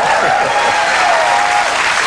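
Studio audience applauding loudly, with some voices cheering over the clapping.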